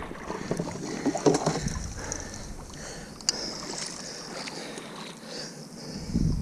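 Rushing river water with a few knocks and one sharp click as the paddles are lifted out of a kayak.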